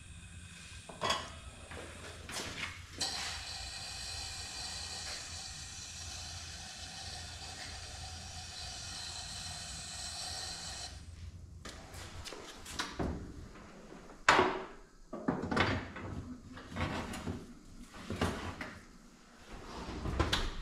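Electrostatic powder-coating gun spraying powder onto a part, a steady hiss with a faint whine for about eight seconds. After that come a series of sharp metal clanks and knocks as the wire oven rack is handled and the curing oven's door is worked.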